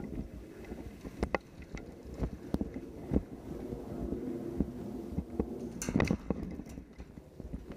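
Irregular thumps, clicks and rustling from a player moving with gear, with a sharper crackling burst about six seconds in.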